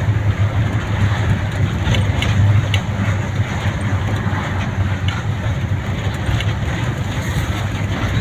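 Steady engine and road noise of a vehicle travelling along a road, a continuous low rumble.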